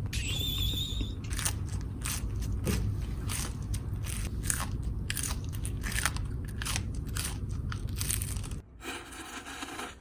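Close-up crunching and chewing of a toasted hot sandwich: irregular crisp crunches several times a second, stopping a little before the end.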